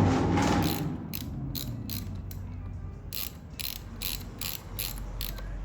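A hand ratchet clicking in quick, slightly uneven strokes, about three a second, as a fastener is turned during the battery install. A low vehicle rumble fades out in the first second.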